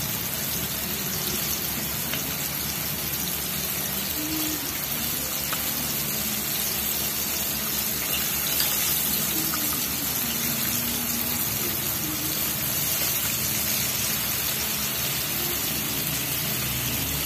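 Flour-coated chicken pieces deep-frying in a wok of hot oil: a steady sizzle and bubbling.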